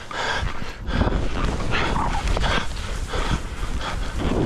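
Skis hissing and scraping over thin early-season snow in uneven surges as the skier turns, over a steady low rumble of wind on the microphone.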